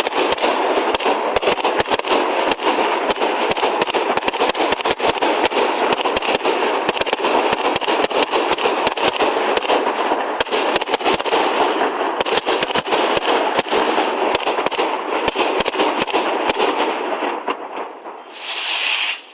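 Fireworks going off in a rapid barrage, dense overlapping bangs and crackles, which thin out and stop about seventeen seconds in.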